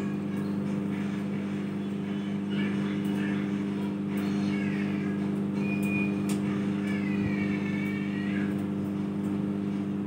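Kenstar KJ20CBG microwave oven running on microwave power, a steady electrical hum with no change in level, while it roasts peanuts on its turntable.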